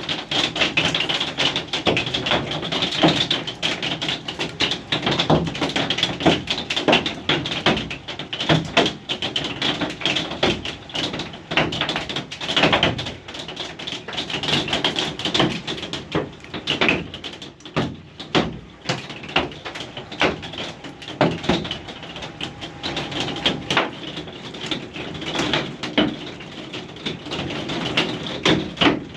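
Hailstones pelting down in a storm: a dense, irregular clatter of hard clicks and knocks, with a steady hiss of precipitation underneath.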